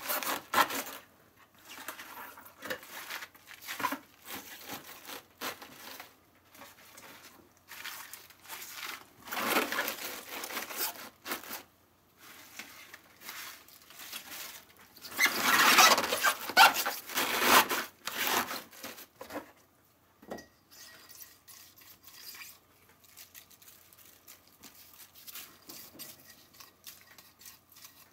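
Salted napa cabbage quarters being packed into a plastic pickling tub by hands in plastic gloves: rustling and crinkling of leaves and gloves against each other and the tub. It comes in bursts, loudest about a third of the way in and just past halfway, with quieter handling and a single knock later on.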